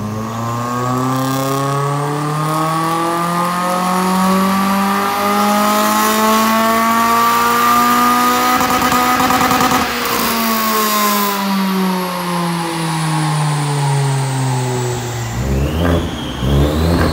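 Car engine on a rolling-road dyno during a power run: the engine note climbs steadily for about nine seconds, stutters briefly at the top, then winds back down, with a few short blips of the throttle near the end.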